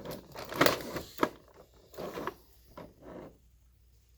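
Plastic toy parts and packaging being handled: a few sharp clicks and rustles, mostly in the first two seconds.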